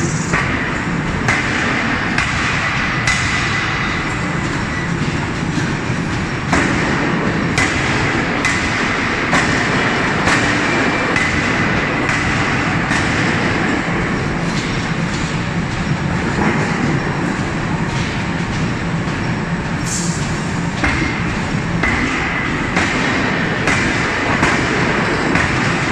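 5-ton hydraulic open-die forging hammer working a red-hot billet: repeated blows, roughly one a second and not quite even, over a steady loud mechanical din. A faint high whine comes and goes.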